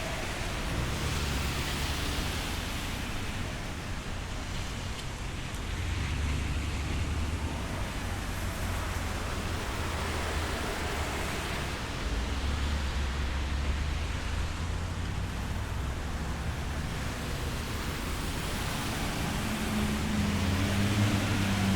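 Road traffic: vehicles passing one after another, a steady wash of tyre and engine noise with a low rumble that swells and fades every few seconds. Near the end a steady low engine hum of a nearby vehicle grows louder.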